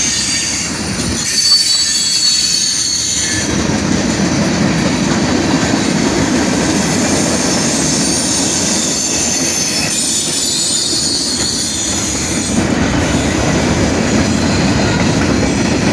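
Freight train of hopper and tank cars rolling by: a steady rumble of steel wheels on the rails, with thin high-pitched wheel squeals that come and go.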